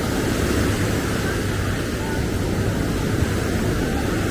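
Steady low rumble of seafront ambience: surf and street traffic blending into one even noise, with faint voices in the distance.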